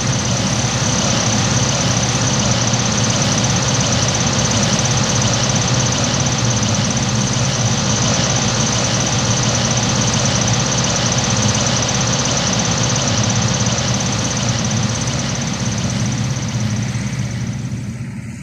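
Combine harvester engine sound effect running steadily, a deep engine drone with a thin steady high whine over it, fading out near the end.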